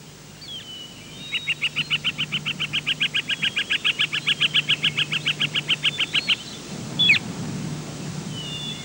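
A songbird singing a long, fast trill of about nine high notes a second lasting some five seconds, followed by a single sharp down-slurred call and a few short chirps.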